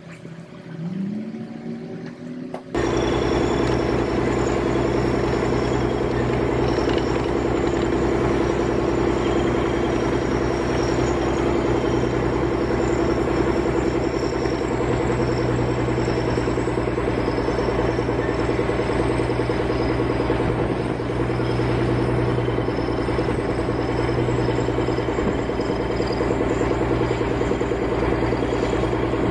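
A heavy machine's engine running steadily with a faint high whine over it. It cuts in abruptly about three seconds in, after a quieter start with a short rising tone.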